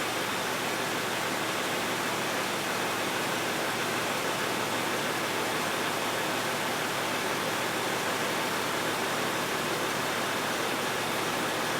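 2010 Toyota Camry's 3.5-litre 2GR-FE V6 idling steadily, warmed up, with the air conditioning running, heard as a steady even rush. It is running on 0W-20 oil instead of the specified 5W-30.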